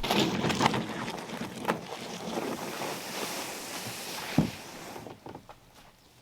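Water splashing around a canoe, with wind noise on the microphone and a sharp knock a little over four seconds in; it grows quieter near the end.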